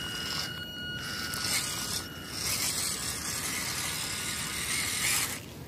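Small electric motor and geared drivetrain of a WPL C14 RC truck whining as it crawls. The whine is steady and high, breaks off briefly twice as the throttle is eased, and stops shortly before the end.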